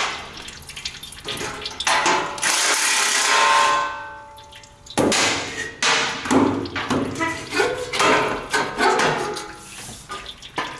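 A cordless impact driver runs for about two seconds, then the plastic underbody skid plate knocks and scrapes repeatedly as it is pulled back from its hangers. Oil runs and drips into a drain pan throughout.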